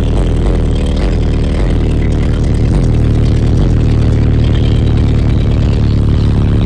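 Bass-heavy music played loud through a 10,000-watt car audio system's wall of EM subwoofers, heard inside the truck cab, with deep bass notes that slide down in pitch again and again.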